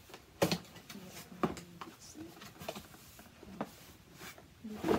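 Cardboard shipping box being opened by hand: flaps pulled open and the box handled, giving a series of scattered cardboard knocks and rustles.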